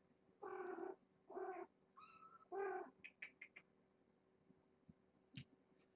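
Young kitten mewing: four short, high mews in the first three seconds, followed by a few faint clicks.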